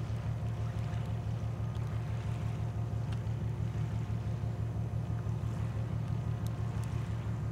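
Boat engine running steadily: a low hum with a fast, even pulse.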